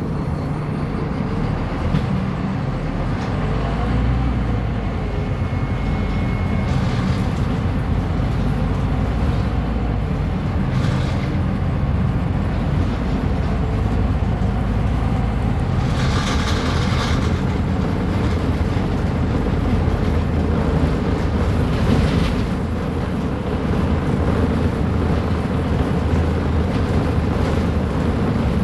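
Scania K310UB bus's five-cylinder diesel engine running steadily with a low rumble. Two short hisses come about halfway through and a few seconds later.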